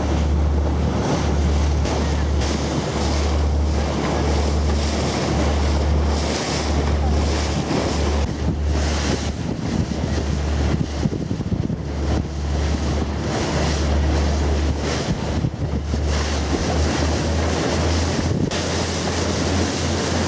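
Wind buffeting the microphone aboard a tour boat under way, in gusts that come and go every second or two, over a steady rush of sea water.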